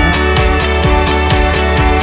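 Background music with a steady, driving beat, deep bass and sustained tones.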